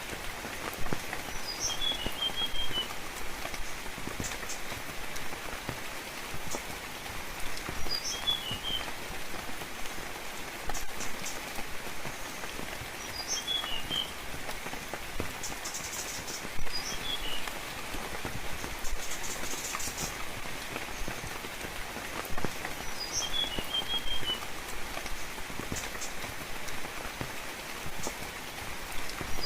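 Steady rainfall with scattered drips. A bird repeats the same short call about every five to six seconds: one high note, then a quick run of lower notes.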